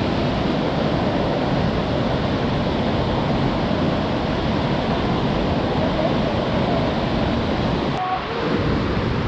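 Steady rush of a waterfall's falling water, with a brief dip in level about eight seconds in.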